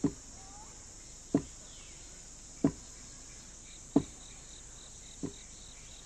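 Wooden pestle pounding millet in a wooden mortar: four dull thuds about 1.3 seconds apart, the last one softer. Under them is a steady high chirring of insects.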